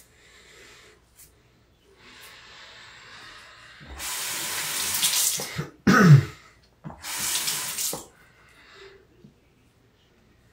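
Water tap running into a sink in two loud bursts, first about four seconds in and again about a second after it stops, while the razor is rinsed. Between the bursts comes a short, loud sound that falls in pitch.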